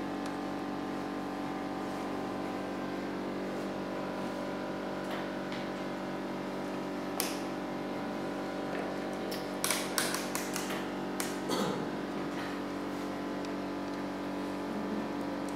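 A steady mechanical hum with sharp clicks and taps from handling a computer power supply unit and its wires. There is one click about halfway and a quick run of clicks about two-thirds of the way through.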